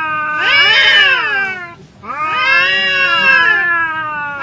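Two long, drawn-out cat-like yowls, each rising and then falling in pitch, with a short break between them; a third yowl begins right at the end.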